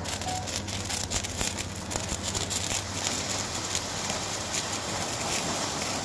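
A ground firework burning, spraying a jet of sparks and coloured stars: a steady hiss packed with dense crackling pops.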